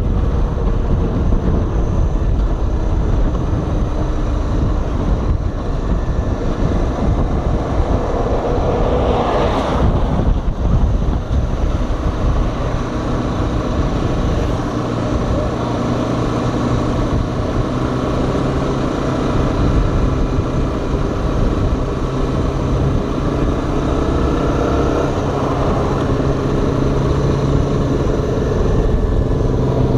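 Honda XR 250 Tornado's single-cylinder four-stroke engine running on the road with wind noise over the microphone; from about twelve seconds in the engine holds a steady pitch.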